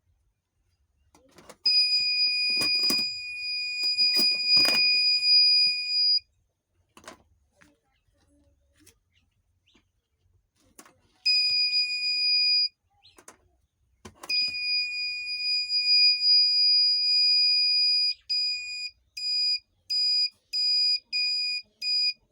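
Homemade security alarm's electronic buzzer sounding a steady shrill tone. It cuts off and starts again twice, then beeps on and off quickly, just under two beeps a second. Two knocks are heard while it first sounds.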